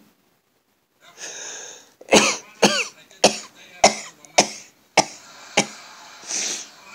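A person sneezing seven times in a rapid series, a little over half a second apart, after a breath drawn in. A short breath out follows near the end.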